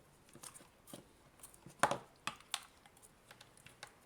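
A scatter of small clicks and taps from cutting off and handling tape on a taped-up power adapter, with the sharpest click about two seconds in.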